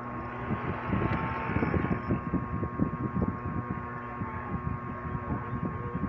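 Dell OptiPlex desktop computer just switched on, its fan running with a steady hum and a steady high whine.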